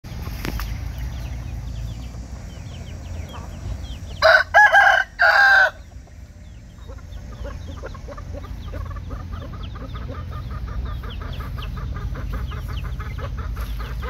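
Rooster crowing once, loud, about four seconds in. Later a faint, fast, even run of short chirps continues over a low background rumble.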